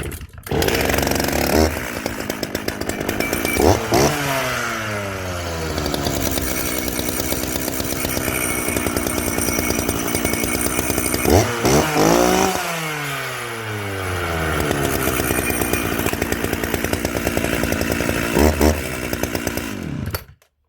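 Makita DCS430 two-stroke chainsaw running, revved up three times and each time falling back to idle, then cut off near the end. It runs cleanly, a sweet-running saw.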